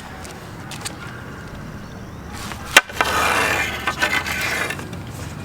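A single sharp crack of a hockey slap shot, the stick striking the pavement and puck, followed by about a second and a half of hissing noise.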